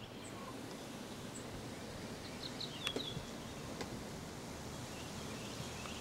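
Quiet outdoor background noise, with a few faint high bird chirps and a couple of light clicks around the middle.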